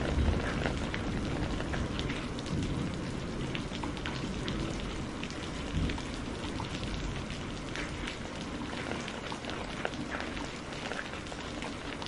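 Steady rain falling, with many individual drops ticking close by over a low rumble that swells just after the start and briefly again about halfway.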